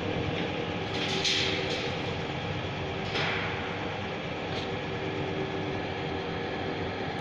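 Stainless-steel centrifugal dewatering machine spinning a load of freshly blanched potato strips to throw off the water. It gives a steady motor hum and rumble, with brief hisses about a second in and again around three seconds.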